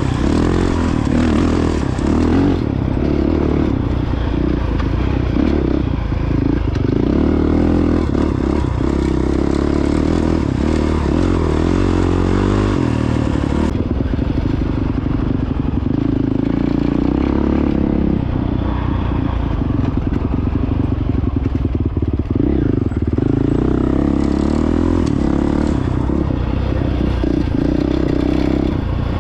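Honda CRF450X dirt bike's single-cylinder four-stroke engine running under way, its pitch rising and falling with the throttle, with scattered clatter and knocks.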